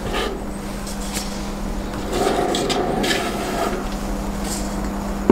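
Resin statue parts handled by hand: a girder-shaped support piece rubbing and scraping against its sculpted base, with a few small knocks, as it is worked into its socket.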